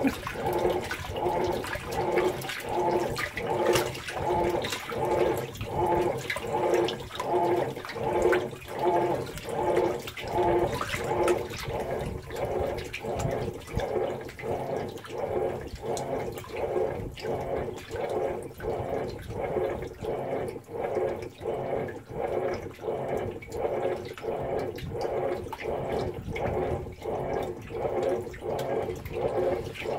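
Whirlpool Cabrio top-load washing machine in its wash cycle, churning clothes in deep water: a steady rhythmic pulsing of about two strokes a second as the drive moves the load back and forth, over water sloshing in the open tub.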